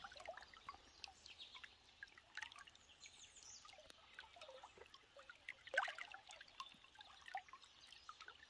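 Faint gurgling and trickling of a shallow creek, with scattered bird chirps.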